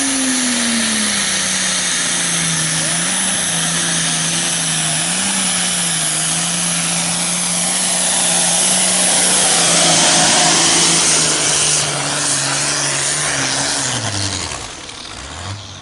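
Diesel engine of a pulling tractor at full throttle, hauling the sled down the track. The engine's pitch dips in the first second and then holds steady. About fourteen seconds in it falls away as the throttle comes off at the end of the pull.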